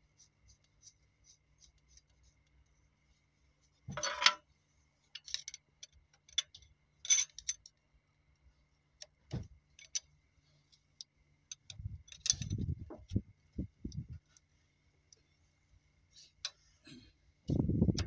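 Steel hand tools, a wrench and a screwdriver, clinking and tapping on the rocker arms and adjusting screws of a Cummins NT855 diesel engine while its tappets are being set. The sound is scattered sharp metallic clicks, with a few duller knocks in the second half.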